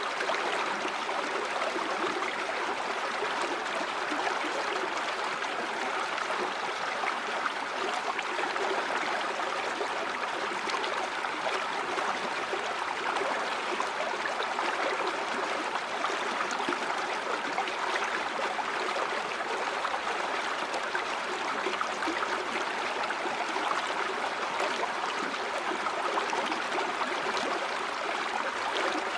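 River or stream water flowing steadily over rocks, an even rushing and babbling.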